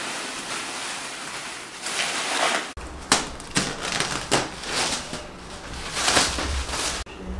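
Plastic stretch wrap rustling and crinkling as it is pulled and torn off a wrapped table. A steady rubbing hiss gives way about three seconds in to a run of sharp crackles.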